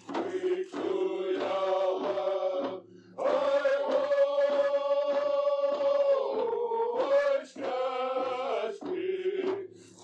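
Male voice chanting a song over a regular drum beat, holding one long note in the middle.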